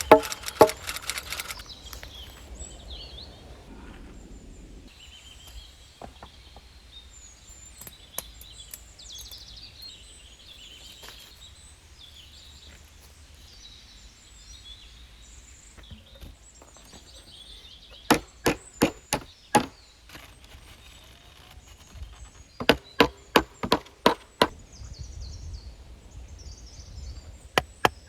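Two runs of quick, sharp chopping strikes on wood, about four a second, with a few single knocks between. Small birds chirp faintly throughout.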